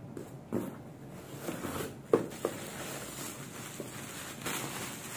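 Cardboard box being opened by hand, with a few light knocks and scrapes of the flaps, then the crinkling rustle of black plastic bubble wrap as a wrapped part is lifted out.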